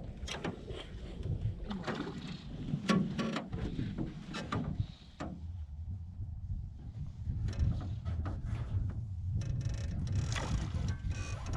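Wind rumbling on the microphone aboard a small fishing boat, with scattered light knocks and clicks from the boat and gear, more of them near the end.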